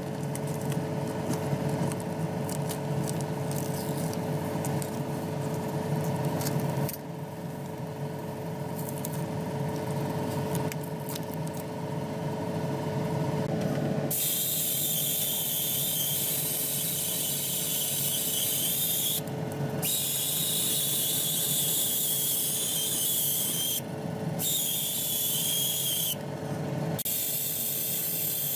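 A steady mechanical hum with a high whine, typical of a spray booth's extractor fan running. From about halfway a paint sprayer hisses as paint is sprayed, cutting off briefly three times.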